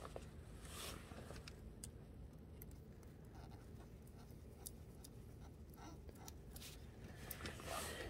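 Faint, scattered small metal clicks and scrapes of the front sprocket retaining-plate bolts being threaded in by hand.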